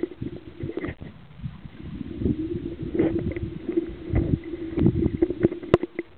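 Muffled underwater noise: irregular knocks and sloshing over a steady low hum, with a sharp click near the end.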